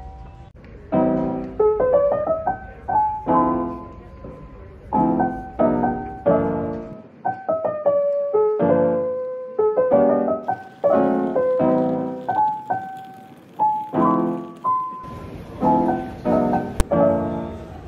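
Background piano music: a slow, lo-fi melody of separate struck notes and soft chords, each ringing away. A single short click near the end.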